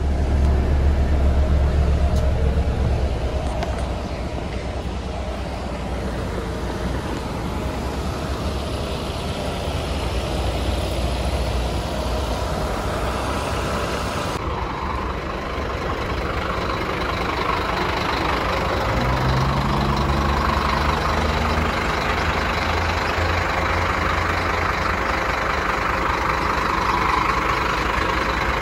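Diesel buses running and moving through, with a heavy low engine rumble at first. About two-thirds of the way in, one engine's note rises as it accelerates away.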